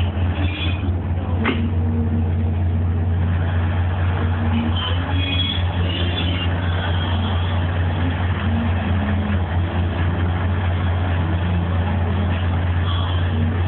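A large purse-seine fishing vessel's engine running at speed: a deep, steady drone under a constant rushing noise. There is a single sharp knock about a second and a half in.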